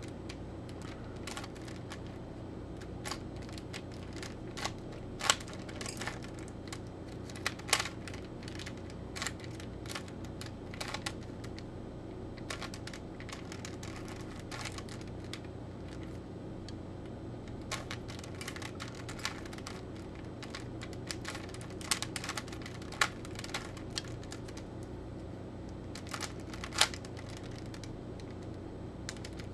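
Rubik's Cube being twisted by hand: irregular plastic clicks and clacks of the layers turning, with a few louder snaps, over a steady low hum.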